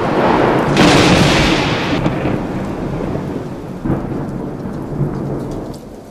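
Thunderclaps over steady rain: a loud clap about a second in and a weaker one near four seconds, each rolling off slowly, with the storm fading out toward the end.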